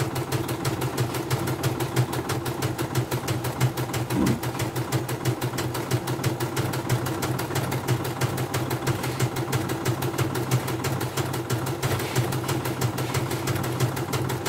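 CNY portable computerised embroidery machine stitching steadily, its needle running in a rapid, even rhythm. It is a test stitch-out after servicing, with the thread tension set so the thread runs without breaking.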